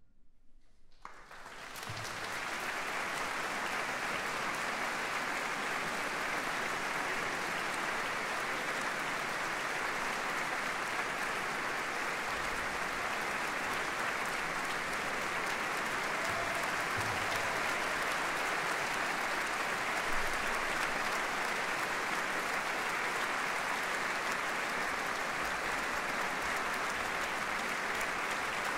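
Concert hall audience applauding steadily after a brief hush, the clapping swelling in about two seconds in as the orchestral performance ends.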